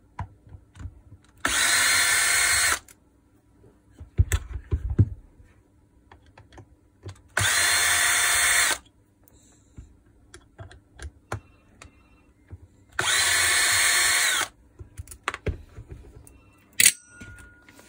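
Cordless drill-driver motor running in three short bursts of about a second and a half each, at steady speed, backing out the screws that hold a drill's gearbox. Between the bursts come scattered clicks and handling knocks.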